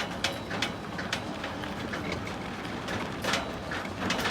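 Steady low rumble of a moving vehicle with irregular clicks and rattles.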